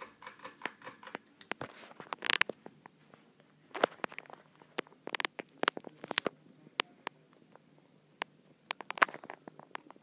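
Hunter Somerset ceiling fan running with a faint steady hum, under many irregular sharp clicks and a few short rustles.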